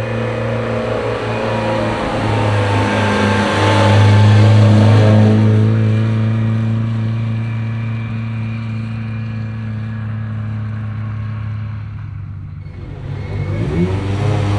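Rally car engine running at a steady pitch, loudest about four seconds in and then fading away. Near the end another engine revs, its pitch rising and falling.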